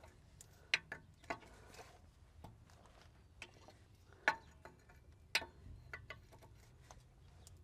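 Steel wrench clicking and clinking against an air-line fitting as it is turned and tightened into the port of a semi truck's air brake chamber: a string of irregular sharp metallic clicks and taps.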